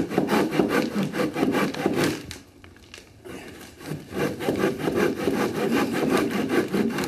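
Handsaw cutting into a wall log with quick, even strokes, about five a second, stopping for about a second a little over two seconds in and then going on.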